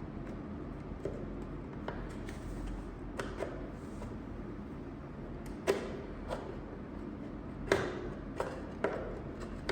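Scattered light clicks and taps of a plastic network keystone jack and its cover being handled and fitted together, about nine in all, two of them louder.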